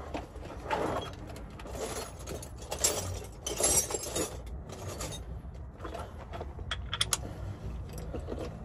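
Metal hand tools clinking and rattling in irregular bursts, with a few sharp clicks near the end.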